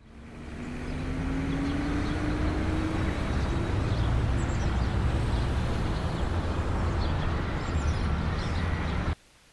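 A low, steady rumbling background ambience, like distant traffic, fades in over the first second and cuts off abruptly near the end, leaving a quiet room.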